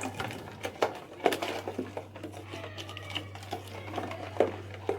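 Stirring lemon curd mixture (eggs, sugar, starch and lemon juice) in a bowl, the utensil clicking and knocking irregularly against the bowl, over a steady low electrical hum.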